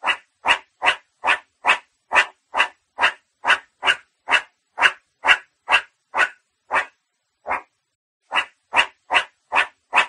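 Meerkat calling: a steady series of short, sharp calls, about two and a half a second, with a brief pause a little after the middle.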